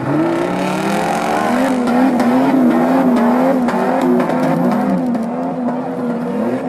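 Off-road vehicle engine revving hard under load on a steep climb. Its pitch rises sharply at the start, then holds high and wavers, with scattered clicks over it.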